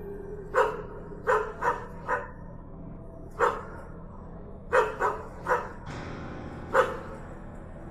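A dog barking, about nine short barks in uneven clusters of one to three.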